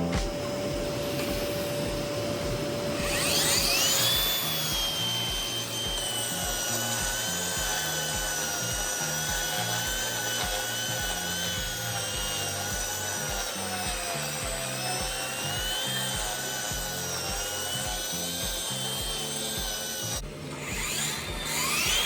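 Concrete grinder running on concrete. Its motor whine rises as it spins up about three seconds in, then holds fairly steady, wavering slightly. Near the end it dips briefly and spins up again.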